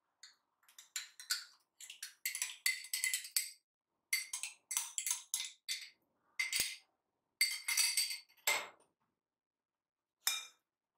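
Metal spoon clinking and scraping against a drinking glass while scooping yogurt out of it: a run of short, ringing clinks in quick clusters.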